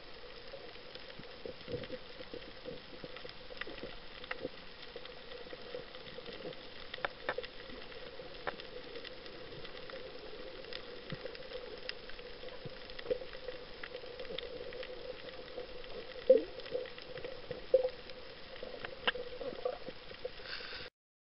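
Underwater reef ambience picked up by a camera held underwater: a steady hiss with a faint hum, broken by scattered crackles and sharp clicks, the loudest a few seconds from the end. The sound cuts off abruptly at the very end.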